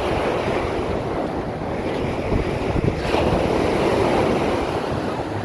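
Ocean surf washing onto the beach, swelling about three seconds in, with wind buffeting the microphone.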